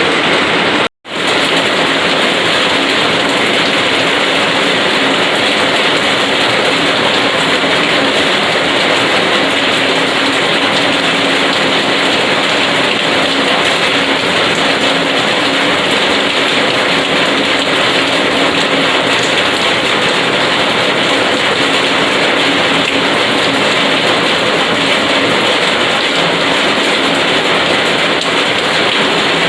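Heavy rain falling steadily. A momentary dropout to silence about a second in, where the recording cuts.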